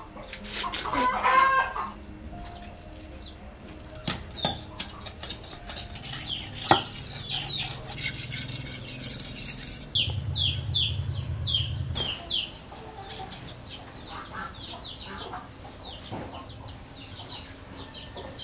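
Chickens in a farmyard: many short, falling peeps, with clucking and a louder call about a second in. A run of sharp clicks runs through the first half, and a low rumble lasts a couple of seconds near the middle.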